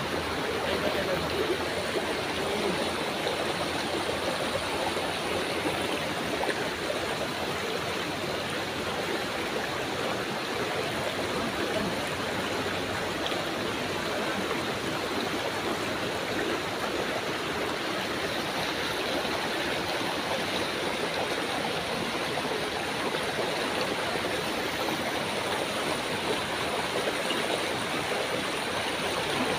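Fast-flowing river rushing steadily, a constant churning of water over a shallow bed.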